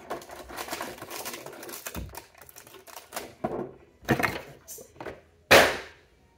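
Small cardboard toy boxes and a clear plastic case being handled on a tabletop: a run of light clicks, taps and rustles, with one louder knock about five and a half seconds in.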